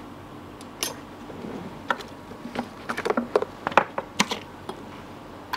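Light, sharp clicks and taps of small metal tools on a phone circuit board during IC rework. They come at irregular spacing and bunch together about three to four seconds in, over a steady faint hiss.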